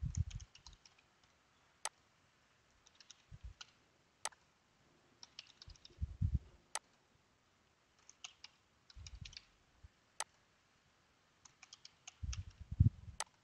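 Typing on a computer keyboard in about five short bursts a couple of seconds apart, a word at a time, each burst followed by a single sharp click, with dull low thuds among the keystrokes.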